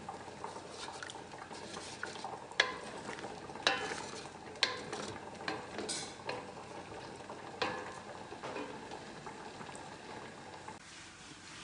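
A metal ladle stirring thick, simmering adjika in a large metal basin, scraping through the sauce and knocking sharply against the basin's side several times, with a soft bubbling sizzle underneath. The stirring stops shortly before the end.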